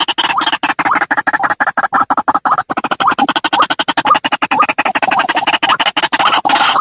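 White-breasted waterhen (ruak-ruak) lure call: a loud, rapid run of croaking notes, about a dozen a second, repeated without a break.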